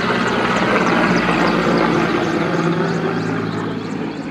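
Helicopter flying overhead, its rotor and engine drone steady and slowly fading as it moves away.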